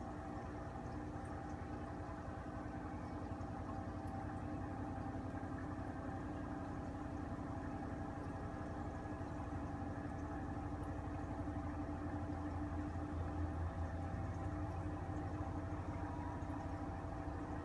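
Steady mechanical hum with a few unchanging tones over a low drone, the low part growing a little stronger about two-thirds of the way through.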